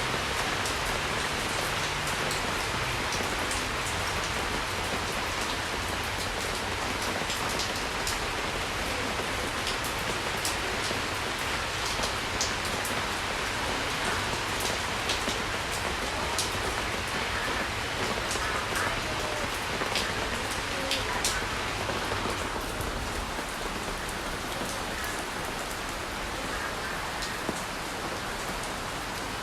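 Steady rain falling, an even hiss with scattered drop patters.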